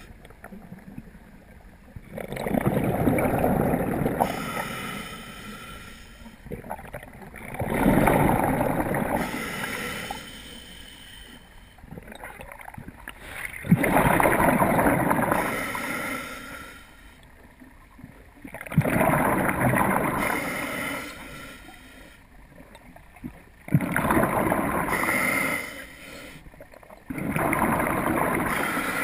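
A scuba diver breathing through a regulator underwater: six loud gurgling rushes of exhaled bubbles, about one every five seconds, each starting suddenly and fading. Between them comes a quieter inhale hiss with a faint whistle.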